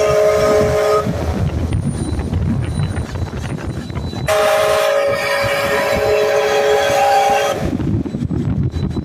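Whistle of Canadian Pacific 2816, a Hudson steam locomotive, sounding a chord of several notes: one blast ends about a second in, and a second blast of about three seconds starts about four seconds in. Under it the locomotive rumbles and clatters as it passes close by.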